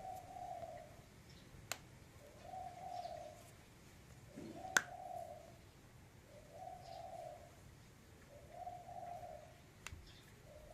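A dove cooing, a low hooting note of about a second repeated about every two seconds. Three sharp clicks fall between the coos, the loudest near the middle.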